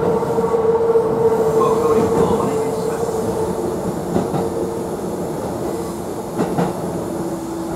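Railcar wheels squealing against the rails on a sharp curve, heard from inside a Kintetsu local train, over the running rumble of the train. The steady squeal drops to a lower pitch a little past halfway, with a few short clacks from the wheels.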